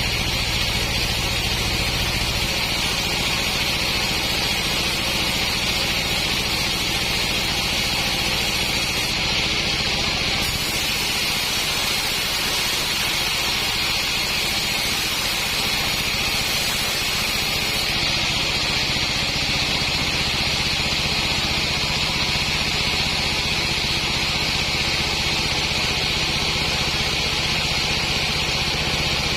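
Sawmill running steadily: a low engine hum under a constant high hiss, with the engine note shifting a few times.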